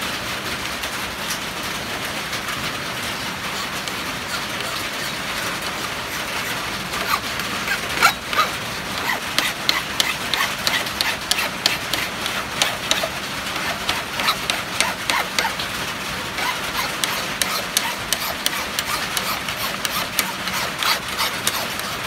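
Flat hand file rasping across the edge of an aluminum plate held in a bench vise, in quick repeated strokes from about seven seconds in. Under it runs a steady hiss of rain on the shed roof.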